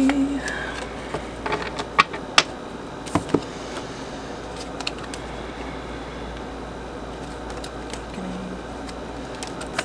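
Tarot cards being shuffled and laid down on a table: a few sharp flicks and taps of card on card and card on table over a steady background hiss.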